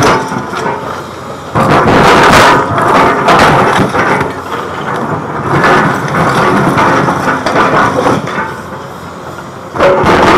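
Caterpillar excavator's steel bucket scraping and crunching through broken concrete rubble over its running diesel engine. The crashing and grinding swell suddenly about a second and a half in and again near the end, with quieter spells between.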